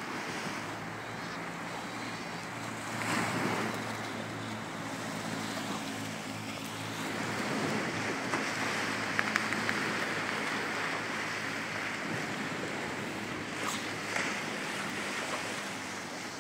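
Sea surf breaking and washing on a sandy beach, with wind buffeting the microphone. A faint low, steady hum joins in from about four seconds in and fades out around twelve seconds.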